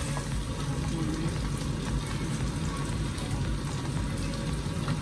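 Pomfret shallow-frying in oil in a frying pan, making a steady sizzle with scattered fine crackles.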